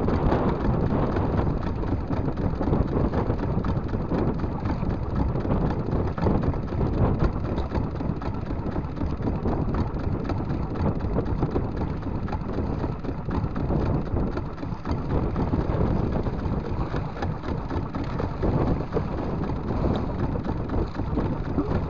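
Steady rushing noise of wind buffeting the microphone and choppy sea around a small open fishing boat.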